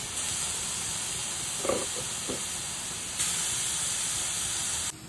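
Grated carrot sizzling in a hot stainless-steel kadai: a steady hiss that gets louder about three seconds in and cuts off abruptly near the end.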